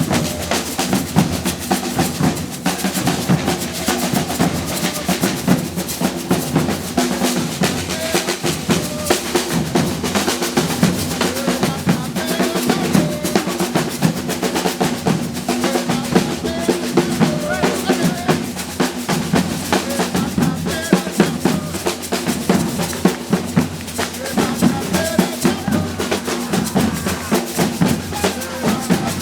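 Brazilian percussion group playing a steady, dense drum rhythm, with snare-like rolls over low bass drums.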